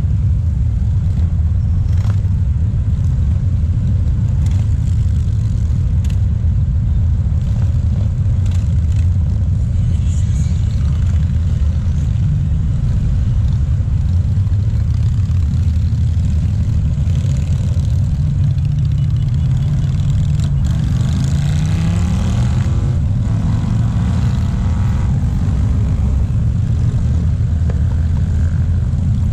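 Steady low rumble of a long stream of motorcycles passing below. About twenty seconds in, one engine's pitch climbs as it is revved up.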